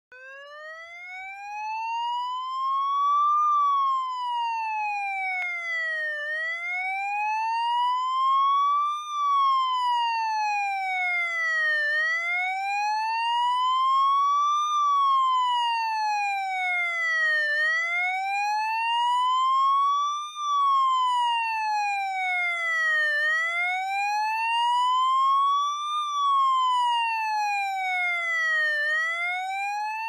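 Police motorcycle siren sounding a slow wail: the pitch climbs for about three seconds, then falls for about three, repeating about five times. It fades in over the first couple of seconds.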